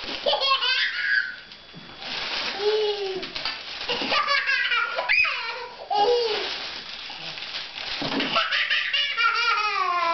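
Toddler laughing in four bursts of belly laughs and high squeals, the pitch swooping up and down.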